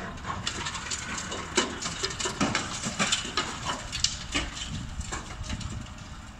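Demolition debris from a high-reach demolition excavator's attachment biting into the top of a concrete building: irregular cracking, crunching and clattering of concrete and rubble, with the loudest cracks about one and a half and four seconds in. A steady low rumble lies beneath.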